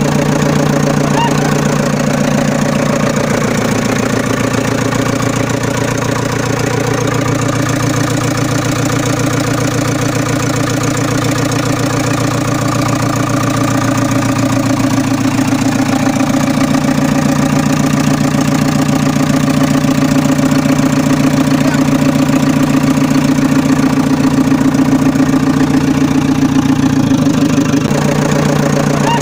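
Tractor engine idling steadily with an even knocking pulse, with a slight shift in its note about halfway and again near the end. This is a recorded engine sound added to footage of string-pulled toy vehicles, not a sound the toys make themselves.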